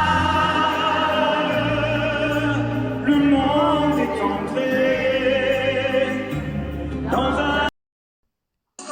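A male singer holds long notes with vibrato over backing music with a deep, shifting bass line. About 7.7 s in, the sound cuts off abruptly for about a second, then the music resumes.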